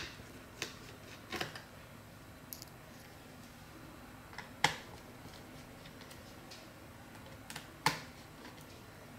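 Small Phillips screwdriver undoing the screws that hold a laptop battery: scattered light clicks of the metal tip on the screws, with two sharper clicks, one about halfway and one near the end.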